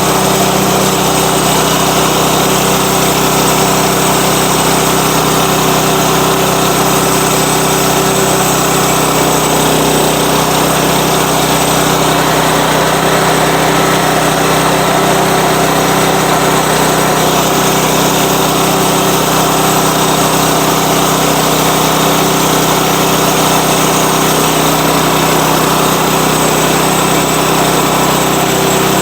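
Sawmill engine running steadily and loud, with no change in pitch or level.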